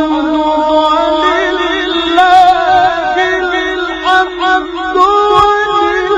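A man reciting the Quran in the melodic mujawwad style, his voice holding long notes that waver and slide through ornamented turns.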